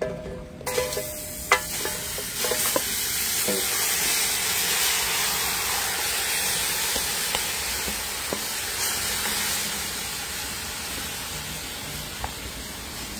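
Seasoned meat sizzling steadily as it hits a hot metal pot over a charcoal fire and is stirred with a wooden spoon. The sizzle starts about a second in, with a few knocks of the spoon and meat against the pot in the first few seconds.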